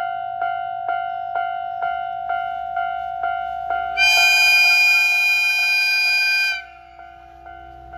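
Railway level-crossing bell dinging about twice a second, then a train horn sounding one steady, loud blast of about two and a half seconds that cuts off sharply as the train approaches.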